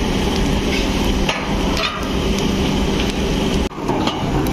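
Steady factory din around a steaming velvet dye vat, with a low machine hum and steam hiss, broken by a few irregular metallic knocks and clanks from the hand-turned winch reel and its iron frame.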